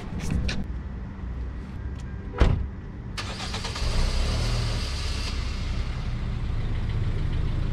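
A car door shuts with a thump, then the SUV's engine starts about a second later and settles into a steady idle.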